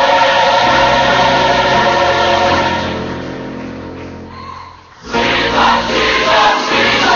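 Gospel choir singing with instrumental backing, fading out over a few seconds; about five seconds in, another stretch of music starts abruptly.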